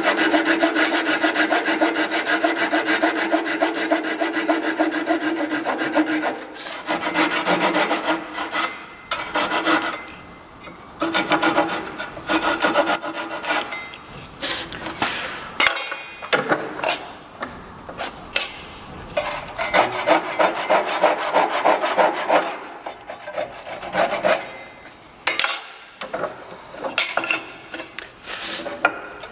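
Abrasive work on white oak, such as sanding or rasping, scraping across the wood in runs of a few seconds with short pauses between them.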